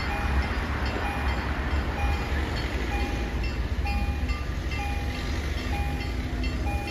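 Electronic level-crossing warning bells dinging in a steady rhythm, a short tone about once a second, signalling that the crossing is closed for an approaching train. A steady low rumble runs underneath.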